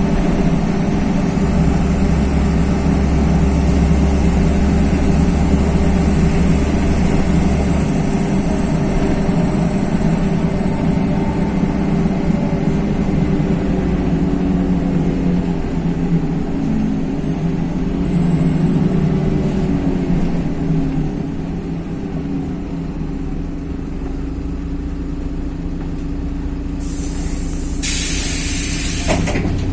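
Inside a LiAZ-5292.21 city bus: the engine and drivetrain run steadily while driving, then quieten as the bus slows for a stop. Near the end come two bursts of compressed-air hiss, a short one and then a longer one, from the bus's pneumatics as it halts.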